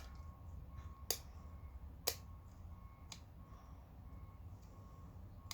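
Three light, sharp clicks about a second apart over a low steady hum.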